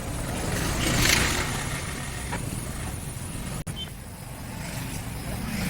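Steady low rumble of a motor vehicle, with a swell of hiss about a second in.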